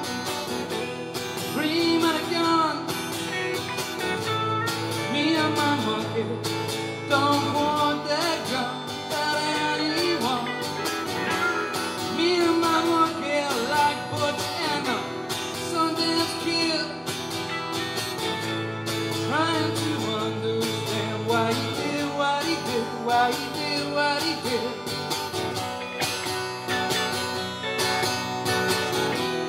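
Acoustic guitar and electric guitar playing a song together: acoustic chords under electric lead lines, with notes bent up and down.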